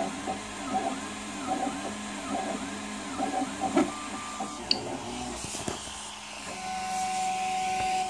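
Prusa i3 MK2S 3D printer's stepper motors whining in repeated rising-and-falling sweeps as the print head moves, over a steady fan hiss, with a couple of light clicks. About six seconds in the sweeps stop and only a steady hum remains.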